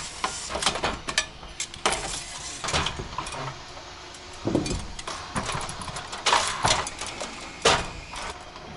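Aluminium ladder being climbed: irregular knocks and clanks of feet and hands on the metal rungs, with small rattles in between.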